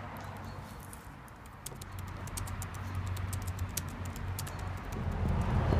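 Typing on a laptop keyboard: quick, irregular key clicks that start about a second and a half in, over a low rumble that grows louder near the end.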